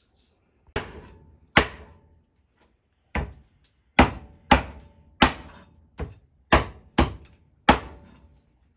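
Kitchen knife chopping through small fish on a wooden cutting board: about ten sharp knocks at an uneven pace, each with a short ringing tail.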